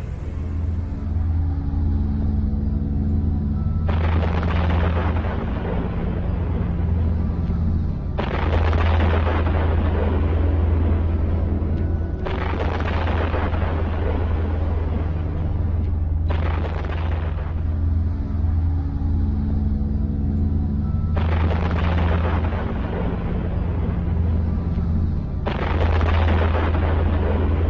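Dark drone soundtrack with a deep steady hum and held low notes, struck about every four seconds by a sudden explosion-like blast that fades out over a few seconds, six blasts in all.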